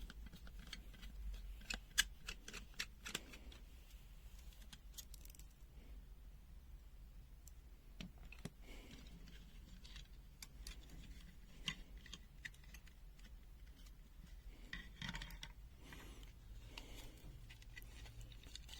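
Faint, scattered clicks and taps of a disassembled multimeter's plastic case and circuit board being handled, with a few sharper clicks about two to three seconds in.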